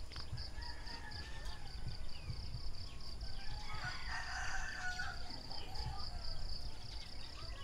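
A rooster crowing, about four seconds in, over an insect's steady pulsing high chirp, about four pulses a second, and a low rumble.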